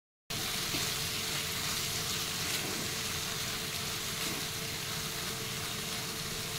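Onion-tomato masala sizzling steadily in a frying pan as it is stirred with a wooden spatula, a little water just added to it. The sound cuts out for a moment at the very start.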